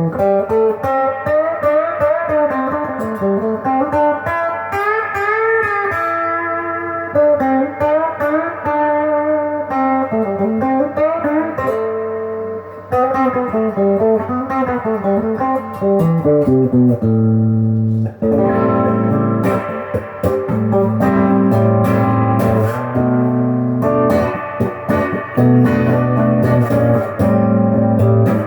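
Epiphone Les Paul Junior electric guitar, on its single bridge pickup with volume full up, played through a Crate amp's built-in overdrive channel. First comes a single-note lead line with bent notes; past the halfway point it changes to held chords played in rhythm.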